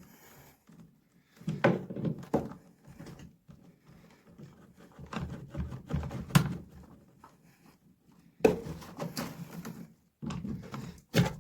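Irregular knocks and clicks of hand work on a Zanussi washing machine's shock absorber, as its lower plastic mounting pin is pressed in and worked out of its mount.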